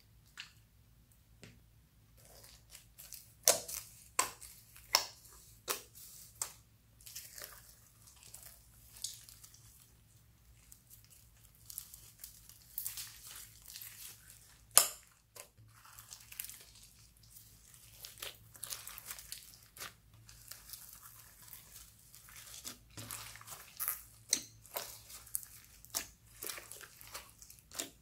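Slime with foam beads mixed in being squished, stretched and kneaded by hand: irregular sticky clicks, pops and crunchy crackles, with one sharp pop about halfway through.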